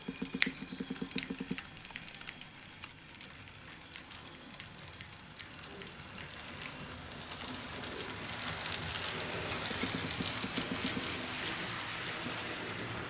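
HO-scale Roco model steam locomotive with coaches running on layout track: a quick rhythmic pulsing with sharp clicks near the start, then a steady hiss that grows louder through the second half.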